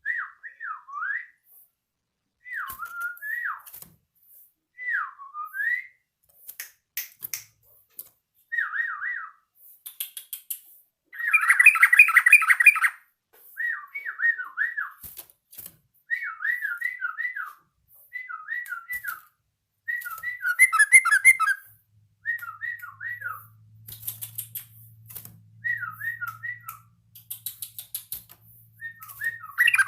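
Yellow-vented bulbul singing short, swooping whistled phrases again and again, a bird practising its song. Twice, about a third of the way in and at the end, it gives a louder, harsher chattering burst.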